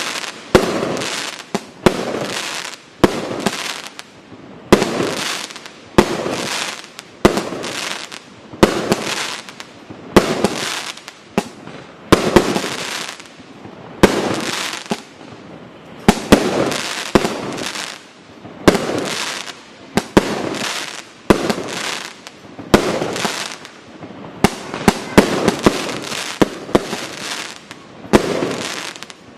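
Multishot fireworks cake firing a long volley: sharp bangs about once a second, each followed by a short crackling, hissing tail, with no pause between shots.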